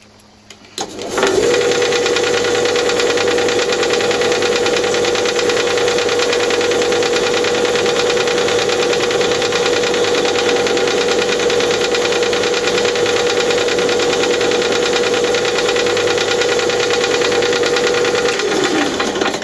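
Bench pillar drill switched on about a second in, its motor rising to speed and then running steadily at a fairly high speed while a small bit is worked up and down through a breath hole in an air gun cylinder. Near the end the motor is switched off and its pitch drops as it winds down.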